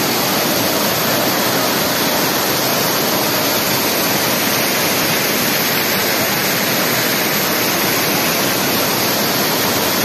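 Düden Waterfall: a loud, steady, even rush of falling water.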